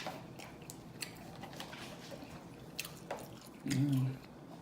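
Close-miked mouth sounds of someone chewing pizza: soft wet clicks and lip-smacking. A short, low voiced sound comes near the end.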